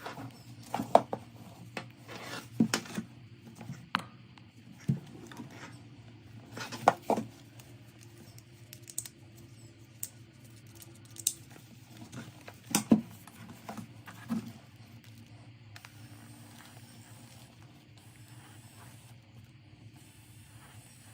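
Irregular clicks, taps and rustles as the shoulder massager and its packaging are handled, over a faint steady low hum. The handling stops about 15 seconds in.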